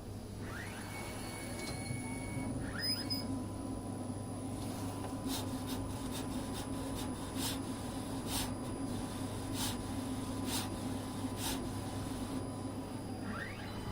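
Desktop 3D printer running: a steady fan hum under the whine of its stepper motors, which glide up in pitch a few times as the print head moves, with sharp ticks about once a second in the second half.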